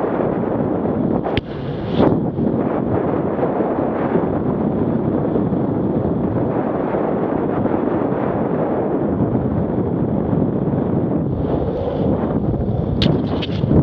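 Steady wind buffeting the camera microphone while riding fast down an asphalt road, over the rumble of wheels rolling on the road surface. A few sharp clicks stand out, two near the start and a couple near the end.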